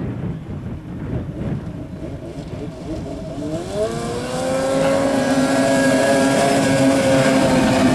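Snowmobile engine revving up: a low rumble for about three seconds, then the pitch climbs and holds steady at high revs, growing louder.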